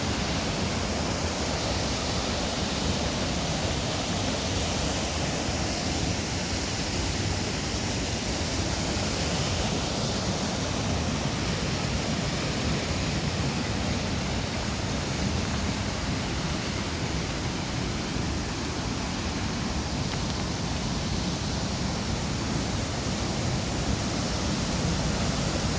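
Pistyll Rhaeadr waterfall: water falling in a steady, unbroken rush.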